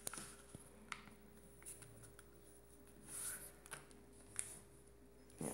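Faint rustling of an A4 paper sheet being folded and pressed flat by hand into a paper airplane, with a few soft, crisp ticks as the folds are creased.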